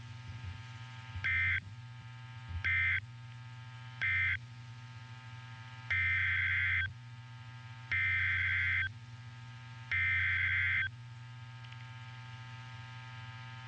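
NOAA Weather Radio SAME digital data bursts, harsh warbling tones. First come three short bursts, the end-of-message code closing the tornado warning. After a pause come three longer bursts about two seconds apart, the coded header of the next warning. A low steady radio hum fills the gaps.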